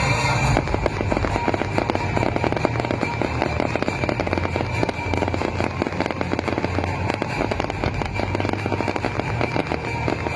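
Aerial fireworks crackling in a dense, rapid stream of small pops from about half a second in, over a steady low rumble, with music faintly underneath.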